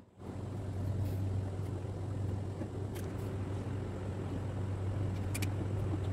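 Steady low hum, with a couple of light knocks from wooden cabinet panels being handled, about three seconds in and again near the end.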